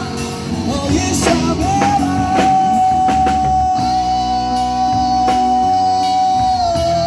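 Live amplified rock band playing: a male singer holds one long high note for about five seconds, dipping slightly at the end, over electric guitars, bass guitar and a drum kit.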